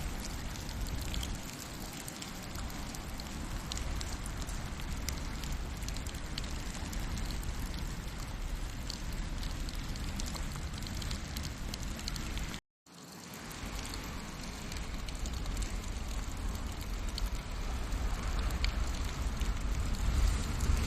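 Steady rain with scattered ticks of drops, and a wood fire crackling beneath it. The sound cuts out completely for a moment about two-thirds of the way through.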